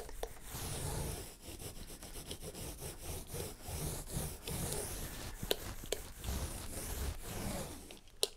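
Small foam roller rolling back and forth over epoxy-wetted glass cloth on a plywood panel: a quiet rubbing that swells with each stroke as the roller consolidates the cloth and drives out air bubbles. Two short sharp clicks in the second half.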